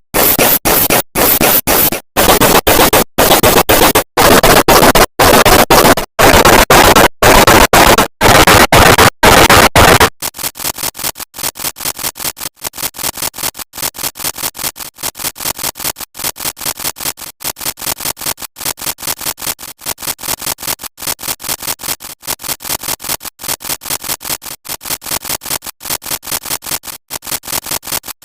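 A sneeze clip sped up, looped and distorted past recognition into harsh noise. For the first ten seconds it comes as very loud chunks of about a second each with short gaps between them. After that it drops to a quieter, rapid stutter of several short repeats a second.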